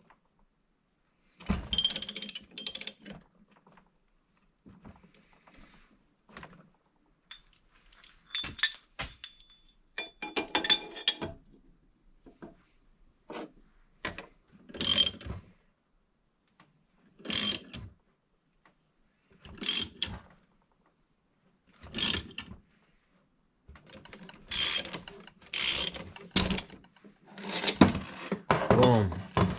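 Ratchet handle clicking as it turns the forcing screw of a gear puller and bearing splitter, pulling a carrier bearing off a differential carrier. Short bursts of clicks with metal clinks come every two to three seconds.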